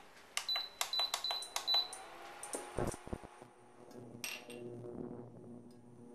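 Portable induction cooktop beeping as its control buttons are pressed, about five short high beeps in quick succession in the first two seconds. A thud follows, then a whisk scraping lightly in a stainless steel saucepan as butter melts, over a faint steady hum.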